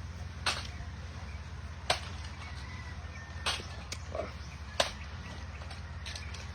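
Crunching bites of crispy fried pork ribs: four sharp crunches spaced a second or so apart, with a few fainter ones, over a steady low hum.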